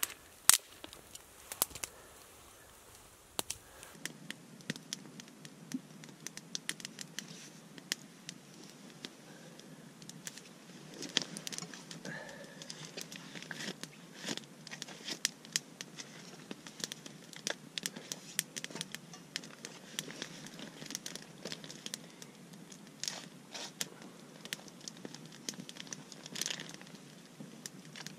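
Wood campfire crackling, with many scattered sharp snaps, mixed with close handling of a pan and utensils over the fire.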